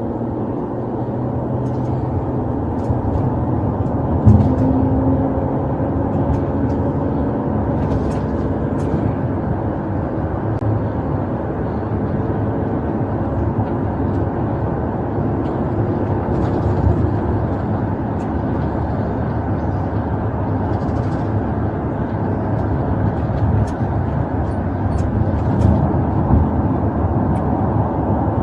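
Steady road and engine noise inside the cabin of a moving police patrol car, with one sharp thump about four seconds in and scattered light clicks.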